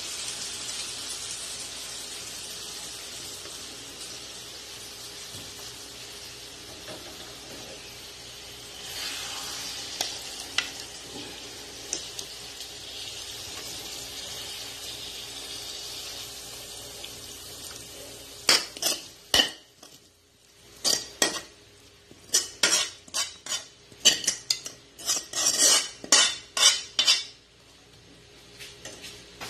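Cooking sounds: a steady sizzle of food frying for the first two-thirds, then a quick run of sharp clinks and scrapes of a utensil against cookware near the end.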